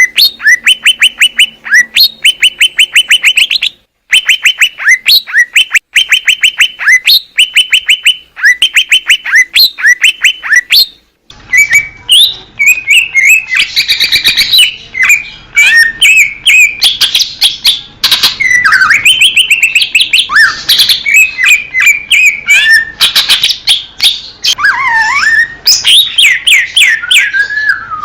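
Cucak ijo (green leafbird) singing. For about the first eleven seconds it gives fast runs of evenly repeated notes, each run about a second long, with short breaks between. After a sudden cut to another recording with a low background hiss, it gives a varied song of rapid chirps and sliding whistles.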